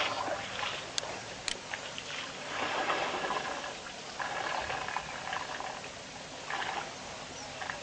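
Water splashing and trickling in uneven bursts, with two sharp clicks about half a second apart near the start.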